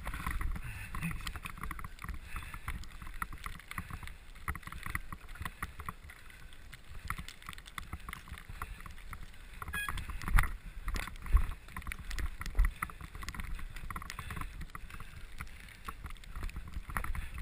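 Bicycle riding over a bumpy snow-covered trail: the ride-mounted camera rattles and knocks over a steady low rumble of tyres and wind, with a few harder jolts about ten to twelve seconds in.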